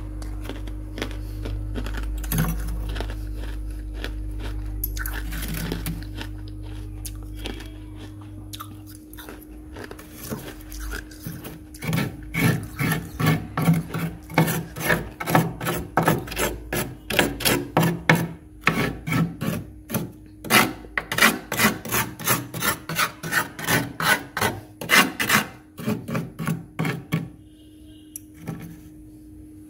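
Metal spoon scraping and scooping packed frost from a freezer floor in quick, repeated rasping strokes, about three a second. The strokes are sparse at first and come in a dense, loud run through the second half.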